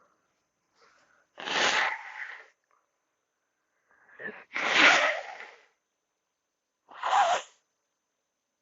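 A woman sneezing three times, a few seconds apart; the middle sneeze is the loudest and starts with a short intake.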